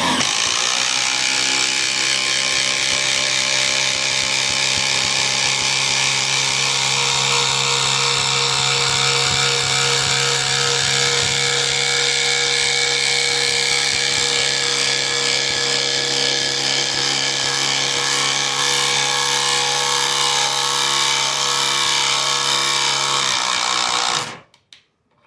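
Ridgid Gen 1 subcompact brushless 1/4-inch impact driver hammering without a break as it drives a 3/8 by 10-inch lag bolt into a wooden 4x4: a loud, steady rattling drone with an even pitch that stops about a second before the end. It has sunk the bolt to about an inch short of fully seated.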